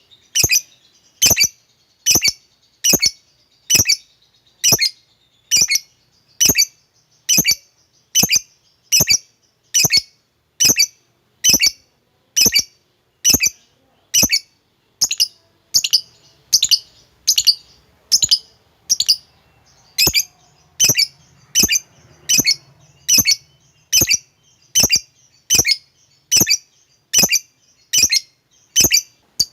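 Lovebird giving a short, sharp call over and over at an even pace, a little more than one call a second.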